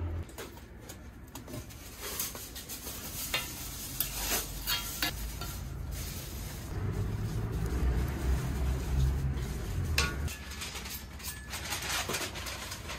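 A metal spatula scraping and tapping on a flat iron griddle while pancakes are folded and turned, with a faint sizzle of batter cooking. The taps and clicks come irregularly.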